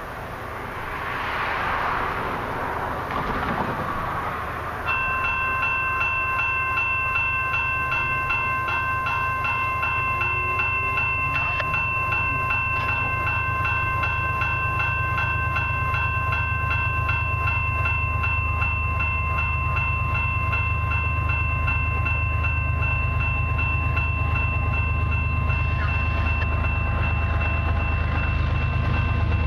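A railway grade-crossing warning bell starts about five seconds in and keeps ringing in a fast, even pulse. Under it, the low rumble of the approaching freight train's lead diesel locomotive grows louder toward the end.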